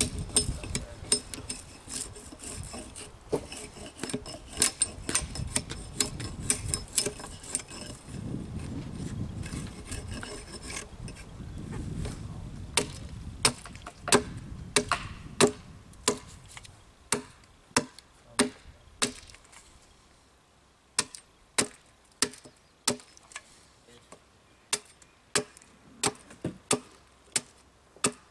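Wood being worked with hand tools: rubbing and rasping for about the first ten seconds, then a run of sharp, evenly spaced blows on wood at about one and a half a second, with a short break near the middle.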